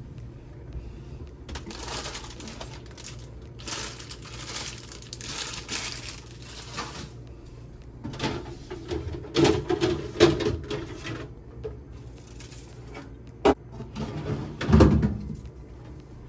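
Food and containers being taken out of a refrigerator: plastic packaging rustles, then items and fridge parts knock and clatter, with a sharp click and a heavier knock near the end.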